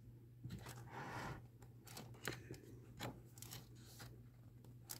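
Pages of a paperback coloring book being turned and handled: faint paper rustling with a few light ticks, over a low steady hum.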